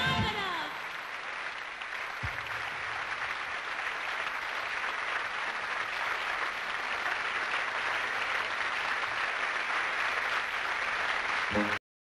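Audience applauding steadily after the dance music ends with its last notes sliding down in the first second. The applause cuts off suddenly near the end.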